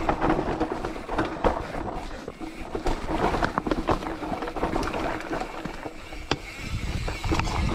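Bicycle rolling fast over a rough, rocky dirt trail: tyres crunching on gravel and stones, with irregular knocks and rattles from the bike over the bumps and wind rumbling on the action-camera microphone.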